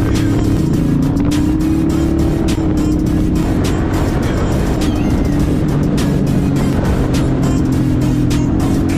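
Motorcycle engine running at road speed with wind noise on a bike-mounted GoPro, its pitch rising briefly about a second in, with music playing over it.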